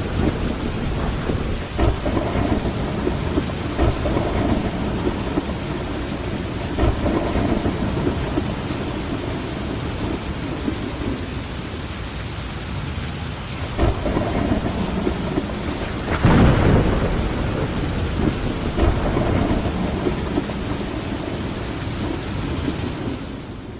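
Steady rain on window glass with thunder rumbling underneath, rolling louder about 14 and again about 16 seconds in.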